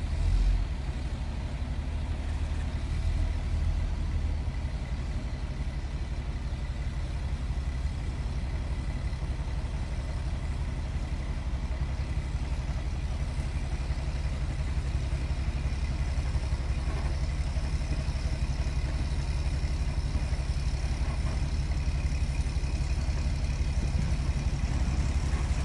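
A heavy engine running steadily with a low, even rumble, with a brief louder thump about half a second in.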